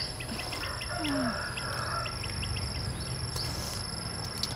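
Outdoor insect chorus: a steady high-pitched insect drone, with short bird chirps scattered through it and a brief falling call about a second in.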